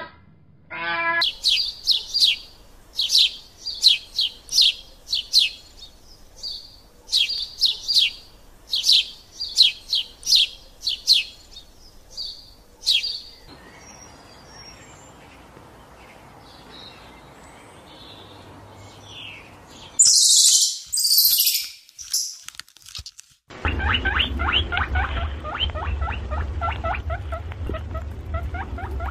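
Birds chirping in runs of quick, high, falling chirps. About twenty seconds in comes a loud hissing burst, and after it a dense, rapid stream of chirps over a low hum.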